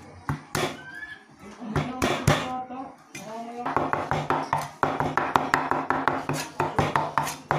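Steel cleaver on a wooden chopping board: a few scattered sharp whacks as garlic cloves are crushed, then from about halfway a fast, even run of chops as the garlic is minced.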